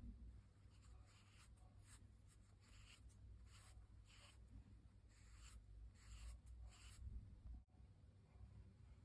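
Faint, soft scratchy swishes of a wet round paintbrush stroked across cold-pressed watercolor paper, spreading brush-pen ink with water. About three short strokes a second from about a second in, stopping about seven seconds in, over a low steady hum.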